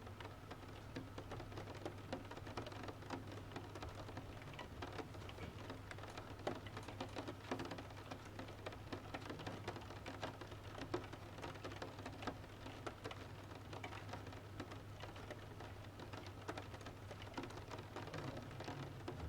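Rain pattering steadily on a window, mixed with a wood fire crackling in irregular sharp pops and snaps, over a low steady hum.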